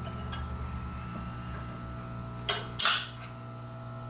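Steel tools or parts clinking against metal twice in quick succession about two and a half seconds in, over a steady low machine-shop hum.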